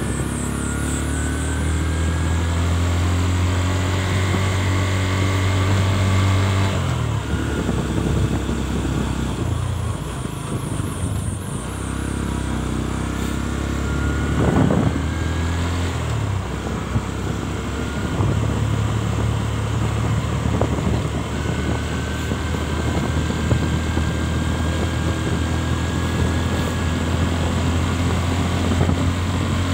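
Motorcycle engine running while riding along, its note changing several times as the throttle or gear changes, over a steady rush of noise.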